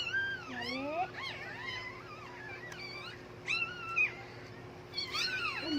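Dog in labor whining and whimpering: a string of short, high-pitched whines that rise and fall, with louder cries a little past three and a half seconds in and again near the end.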